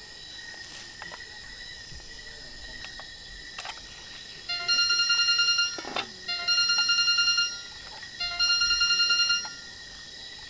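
Phone ringing with an electronic warbling ringtone: three rings about a second long each, starting about halfway through. Crickets chirp steadily underneath.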